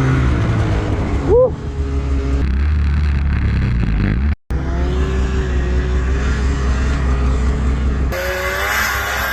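Snowmobile engines running and revving, their pitch wavering up and down, with a quick rising rev about a second and a half in. The sound drops out for an instant a little past the middle, and its character changes shortly before the end.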